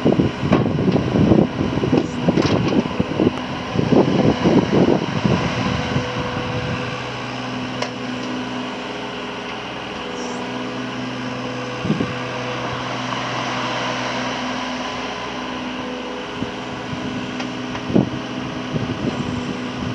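Yanmar ViO20-3 mini excavator's diesel engine running steadily while the machine travels on its tracks and works its boom. There is irregular clattering over the first five seconds or so, and a single knock around the middle and another near the end.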